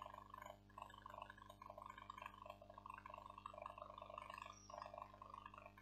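Near silence: room tone with a steady low hum and a faint, indistinct murmur.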